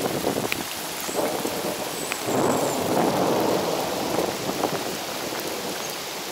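Steady hiss of rain and rushing floodwater in a rain-swollen creek. A louder rumbling swell comes a little over two seconds in and lasts about a second.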